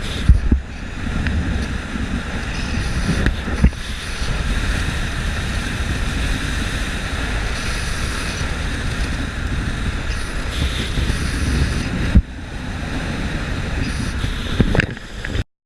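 Strong storm wind buffeting the microphone: a steady, loud rushing with a heavy low rumble. A few sharp knocks come through it, and the sound cuts off suddenly near the end.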